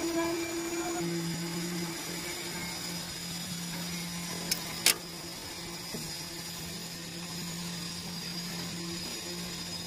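A steady low motor hum, with two sharp clicks close together about halfway through.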